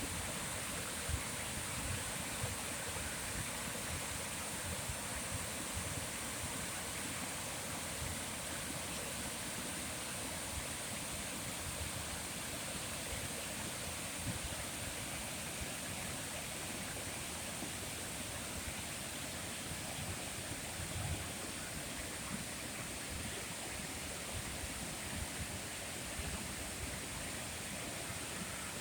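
Steady outdoor nature ambience: an even rushing noise with irregular low rumbles underneath.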